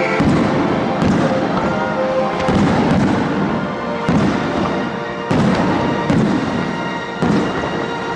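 Fireworks show: a run of aerial shell bursts, about one a second, each a sharp boom with a reverberant tail, over music played on loudspeakers to accompany the display.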